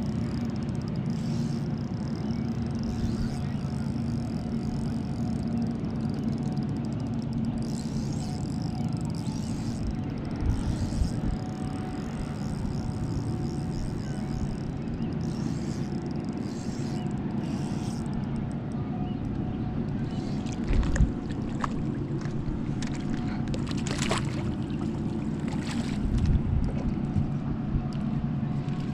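Small outboard motor running steadily at low speed, a constant low hum. Several knocks and rattles in the boat in the second half, as the landing net comes aboard.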